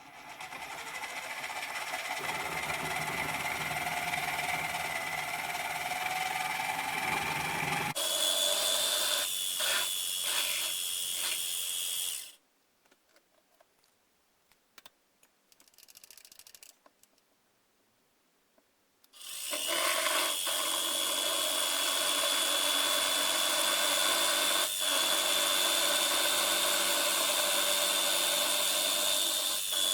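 Electric power tool running at speed with a steady high whine: it spins up at the start, stops about twelve seconds in, and after a pause of about seven seconds starts again and runs steadily.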